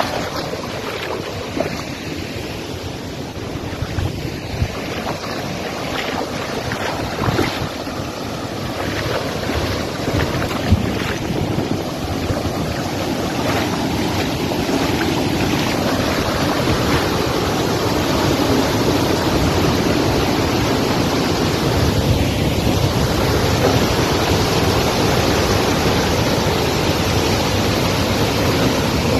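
Muddy floodwater rushing, steady and loud. Splashes and knocks from feet moving in the shallow water come in the first half. From about halfway the water grows into a fuller, even rush where it pours over a washed-out road edge.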